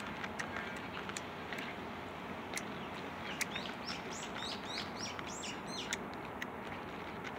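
A small bird singing a quick run of high chirping notes from about three seconds in to about six seconds in, over a steady outdoor hiss with scattered faint clicks.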